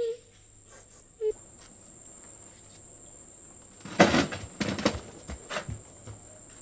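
A steady high insect trill, like crickets, under a short low hum near the start; about four seconds in come a handful of loud knocks and scuffs, the loudest sounds here, spread over a second and a half.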